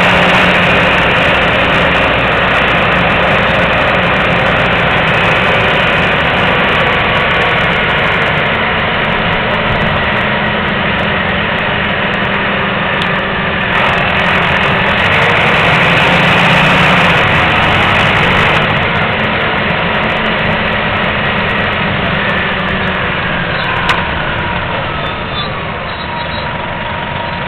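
Nova Bus RTS transit bus's diesel engine running under way. It grows louder for a few seconds past the middle, then winds down with a falling whine, and there is a single tick near the end.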